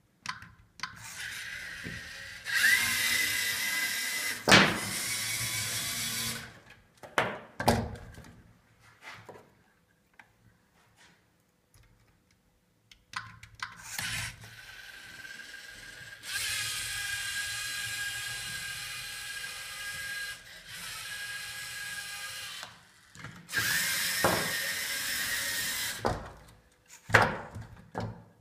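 LEGO Mindstorms EV3 robot's electric motors whining in several long runs, one speeding up with a rising pitch, as the robot drives and swings its attachment arm. A few sharp plastic knocks fall between the runs.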